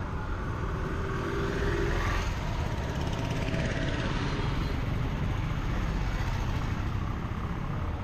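Auto-rickshaw (tuk-tuk) driving past close by. Its small engine grows louder to a peak about two to four seconds in, then eases away over steady street rumble.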